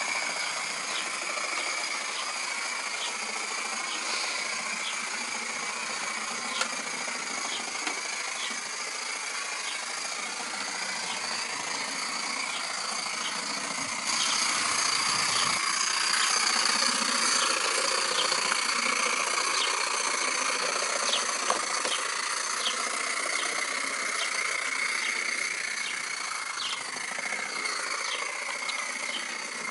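Coal-fired vertical-boiler model steam locomotive running on its track: a steady hiss and rasp from the engine with a light clicking every half second or so, louder from about halfway through.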